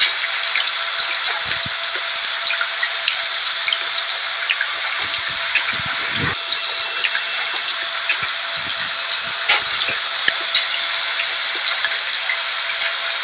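Steady rain mixed with a running vacuum cleaner: a constant, even hiss with a faint steady motor tone under it and scattered small drop ticks.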